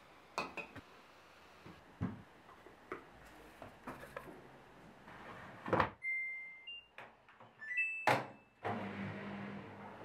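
A washing machine being set going: clicks and knocks of handling, then several short electronic beeps from its control panel as the dial is turned and start is pressed, with a loud knock among them. Near the end the machine starts running with a steady low hum.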